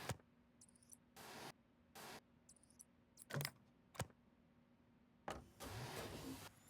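Faint handling sounds: a few sharp clicks and knocks between short bursts of rustling noise.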